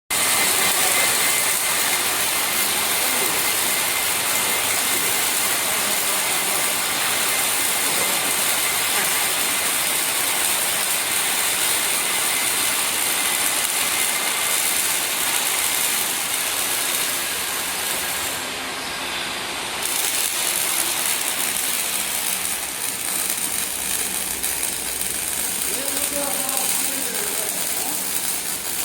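Robotic arc welding on steel structural parts: a steady, loud hiss of the welding arc, with a short drop about two-thirds of the way through.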